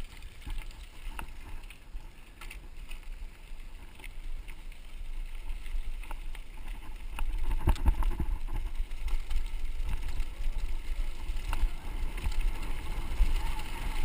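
Mountain bike rolling along a dirt and gravel road, heard from a handlebar-mounted camera: wind rumbling on the microphone, with the bike knocking and rattling over bumps. It grows louder about halfway through.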